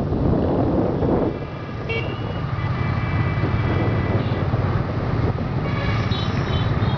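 Riding in dense motorbike traffic: a steady scooter engine and road rumble, with wind rushing on the microphone for the first second or so. Motorbike horns honk over it, one held horn from about two seconds in and a run of short toots near the end.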